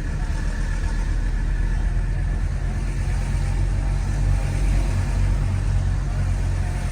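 A 1983 Mercedes-Benz 300CD's 3.0-litre turbodiesel inline-five running, heard from inside the cabin as a steady low engine drone.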